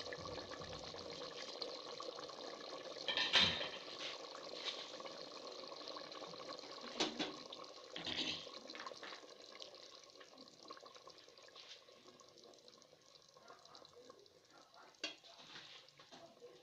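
Pot of potato-and-pea curry simmering, a steady bubbling with scattered sharp pops or clicks, the loudest about three seconds in, growing quieter over the second half.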